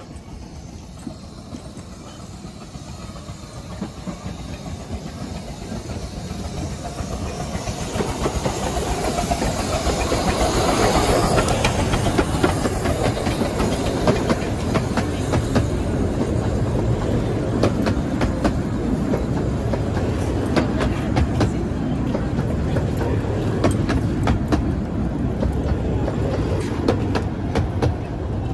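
A 15-inch-gauge miniature steam train arriving: the locomotive draws in, getting louder over the first ten seconds or so, and passes close by, then its coaches roll past with a run of sharp wheel clicks over the rail joints.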